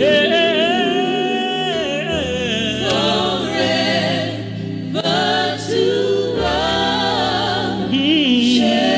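Gospel choir holding long, wavering notes without words over a steady low accompaniment: the closing of a worship song.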